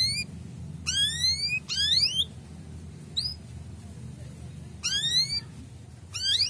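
Male canary calling 'cuit cuit': quick runs of rising chirps in short bursts roughly a second apart, with one lone chirp about three seconds in.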